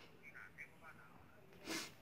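Baby crab-eating macaque making a few faint, short squeaks, then a short breathy puff near the end.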